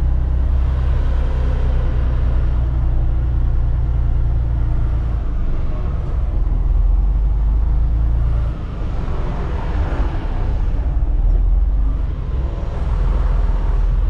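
Truck's diesel engine running as it manoeuvres at low speed, a steady low rumble whose note shifts a few times, with a brief dip in level about eight and a half seconds in.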